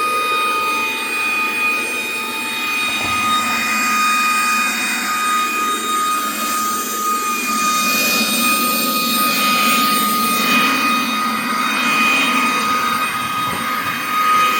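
WYZE cordless vacuum running: a steady high-pitched motor whine over the rush of suction air, the air noise shifting as the vacuum is moved about.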